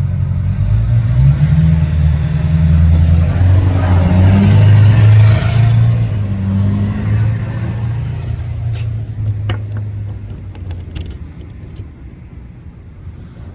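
A motor vehicle driving past, its low engine note and tyre noise growing louder to a peak about five seconds in, then fading away.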